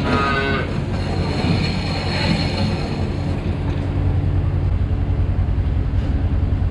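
Kubota engine running steadily at a low, even pitch, with a short pitched squeal right at the start.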